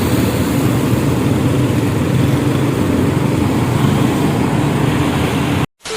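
Diesel engine of a concrete mixer truck running, a steady low drone with engine hum. It cuts off abruptly near the end.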